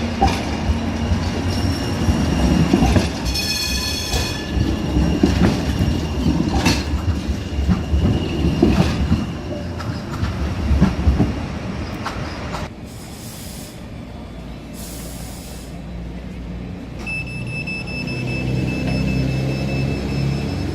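Tram-train running on rails, its wheels rumbling with sharp clicks over the track and a brief high squeal about three seconds in. The noise drops off about thirteen seconds in, and a steady high tone sounds from about seventeen seconds.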